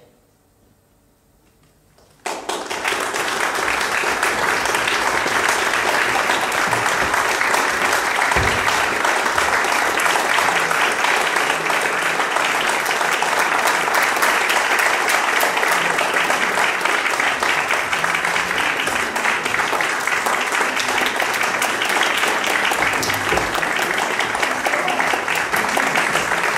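A couple of seconds of hush, then applause breaks out suddenly and carries on steadily, the audience and the musicians on stage clapping.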